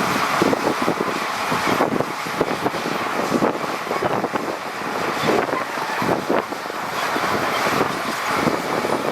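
Heavy diesel earthmoving machinery running: a steady noisy drone with irregular short knocks and clatters throughout.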